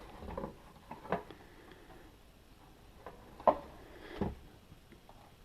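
Handling noise: a few separate knocks and clicks as hard objects are moved and set down, the loudest about three and a half seconds in.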